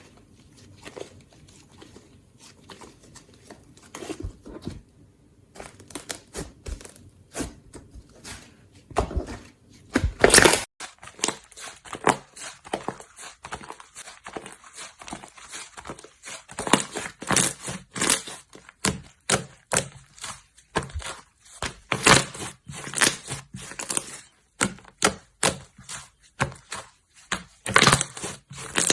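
Slime being squished, poked and stretched by hand, giving a dense run of short clicks and crackles. The background hiss changes abruptly about ten seconds in.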